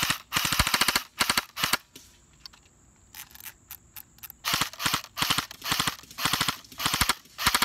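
M4-style airsoft rifle firing full-auto in rapid bursts: one burst of about a second, two short ones, a pause of about two seconds, then a string of short bursts toward the end.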